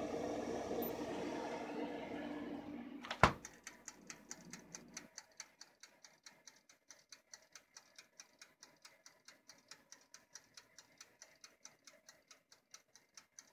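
Steady mechanical ticking, about four ticks a second, from a toaster oven's wind-up timer while aluminium rims heat inside. Before it, a hum with handling rustle ends in a sharp click about three seconds in.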